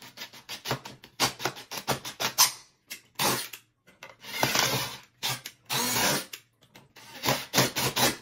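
Cordless drill boring drainage holes through the bottom of a plastic solo cup. The bit grinds through the thin plastic in a string of short, rattling bursts, one hole after another.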